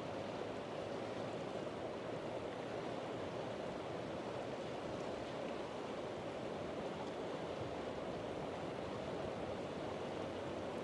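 Steady rush of flowing river water, an even noise with no breaks or changes.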